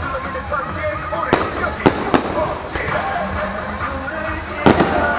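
Aerial firework shells bursting in sharp bangs: one about a second and a half in, two close together around two seconds, and another pair near the end, over continuous background music.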